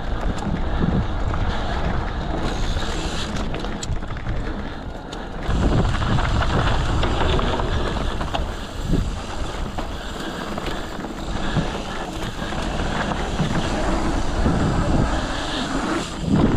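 Mountain bike riding down a dirt trail, heard through an action camera's microphone: wind buffeting the mic over a steady rumble of tyres on the ground, with small rattles and clatters from the bike. The rumble eases briefly, then picks up again about five and a half seconds in.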